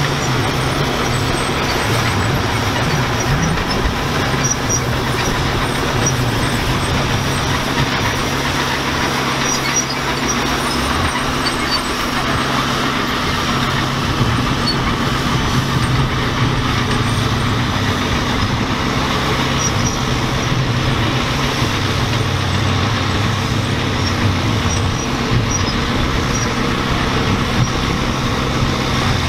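Allis-Chalmers crawler tractor's engine working steadily under load as it drags a weight-transfer pulling sled, with the sled grinding along the dirt.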